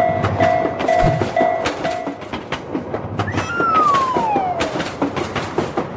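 Railroad crossing warning bell ringing about twice a second, stopping about two seconds in, over the clickety-clack of train wheels on rail joints. A little after three seconds a single whistle-like tone falls in pitch for about a second.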